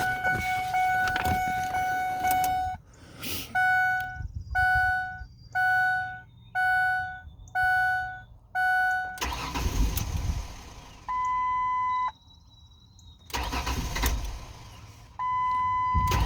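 Car warning chime beeping about once a second, then the starter cranking the Ford Explorer's engine in two short tries, with a higher steady warning tone between and after them. The fuel pump relay is pulled, so the cranking only burns off the fuel left in the rail.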